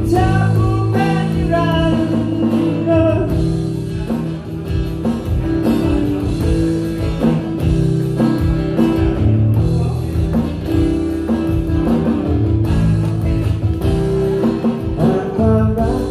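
Live acoustic-guitar-and-drum-kit band playing a ballad's instrumental passage between verses: the guitar is strummed over steady drum hits. A sung line trails off in the first few seconds and the singer comes back in near the end.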